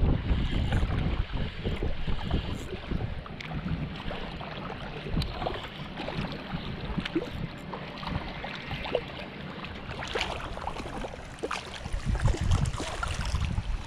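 Wind buffeting the microphone in an uneven low rumble, over small waves lapping at a sandy shoreline, with scattered light clicks. The rumble grows stronger in the last few seconds.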